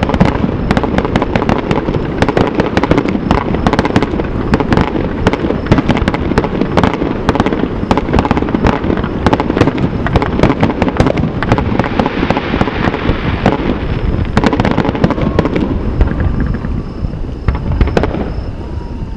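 Aerial firework shells bursting in a rapid, overlapping barrage of booms and crackles over a steady rumble, thinning out and getting a little quieter near the end.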